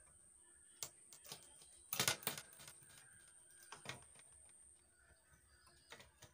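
A few sharp clicks and taps of hand tools on a circuit board while resistors are being desoldered, the loudest a quick cluster about two seconds in. A faint, thin high whine runs steadily underneath.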